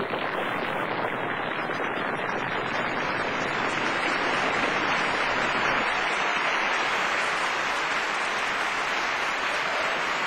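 Audience applauding steadily as the song ends.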